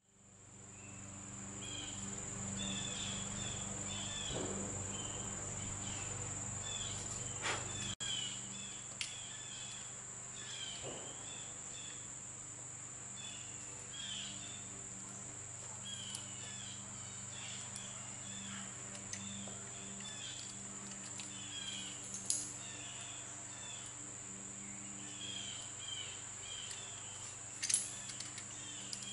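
Insects droning in one steady high-pitched tone, fading in over the first couple of seconds, with short chirping calls repeating throughout. A few light clicks and knocks stand out now and then.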